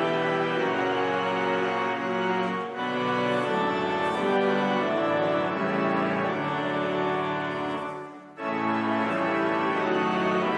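Organ playing sustained chords that shift every second or so, with a brief break about eight seconds in.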